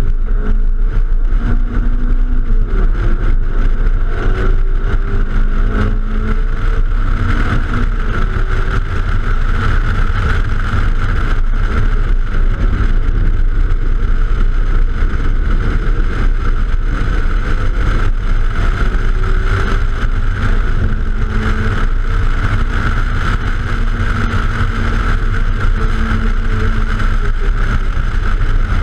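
A hatchback at track speed: steady wind rush and buffeting on an outside-mounted microphone, with the engine heard faintly under it, its pitch rising and dropping as the car accelerates and shifts through the corners.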